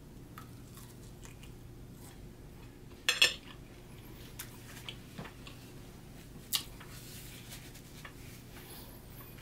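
Close-miked chewing of a bite of steak, with small wet mouth clicks over a faint steady hum. About three seconds in, a fork is set down on a ceramic plate with a brief clatter, the loudest sound.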